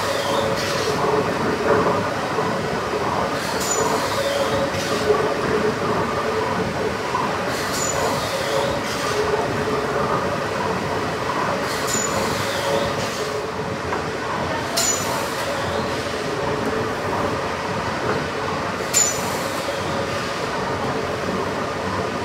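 Triple-expansion steam pumping engine (the Sir William Prescott) running slowly, heard from among its moving rods and plungers: a steady mechanical running noise with a faint steady tone, and a short sharp high sound recurring about every four seconds with the engine's motion.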